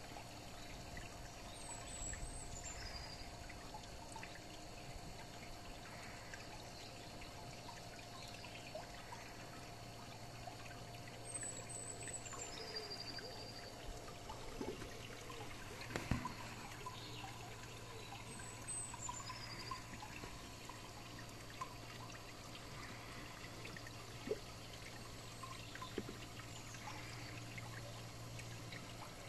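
Water trickling and pouring into a garden pond, over a steady low hum. A few sharp knocks, the loudest about halfway through, and a short high falling chirp that comes back every several seconds.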